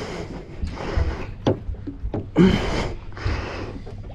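A person breathing hard in uneven gusts, several heavy breaths, one with a short grunt, while playing a fish at the boat's side. A single sharp click comes about a second and a half in.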